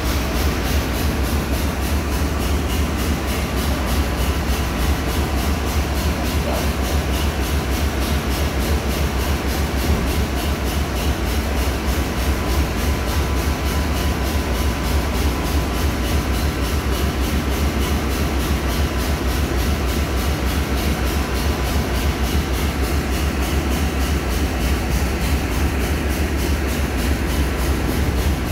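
Ship's engine-room machinery running: a steady, loud low rumble with a dense hiss over it and a few faint steady tones, without let-up.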